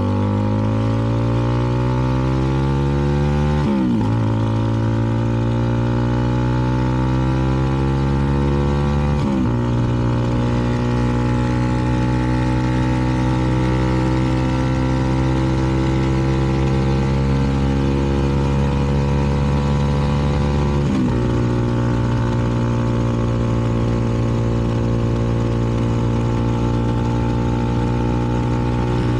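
CFMoto 300NK motorcycle's single-cylinder engine through a KO aftermarket exhaust, accelerating through the gears. The engine note climbs, drops at an upshift about four seconds in and again about nine seconds in, then holds steady at cruising speed with another shift about 21 seconds in.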